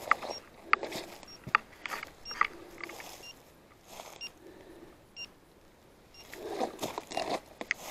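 Footsteps pushing through dry leaf litter and brush, with several sharp twig snaps in the first few seconds and a burst of rustling near the end. Faint short high beeps repeat about once a second under it.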